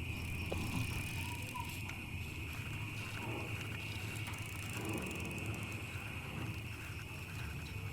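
Bicycle being ridden: light mechanical ticking and rolling noise from the chain and tyres, under a steady high-pitched tone and a low hum.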